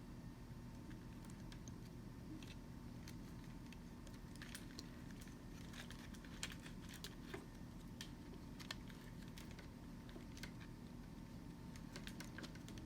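Scattered light clicks and taps of small parts and tools being handled during reassembly, most frequent in the middle, over a faint steady hum.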